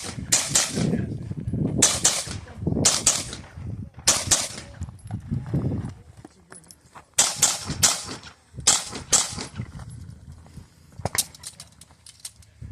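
Handgun fire during a USPSA stage, most likely from a Sig Sauer P320 pistol: sharp shots, some in quick pairs and some alone, with pauses of a second or more between strings as the shooter moves between targets, and a run of lighter cracks near the end.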